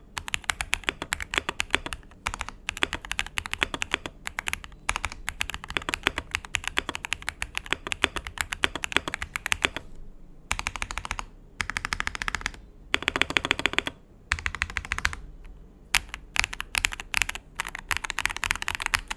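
Akko MOD007 PC mechanical keyboard being typed on, fast runs of keystroke clacks with a few short pauses and quick bursts near the end.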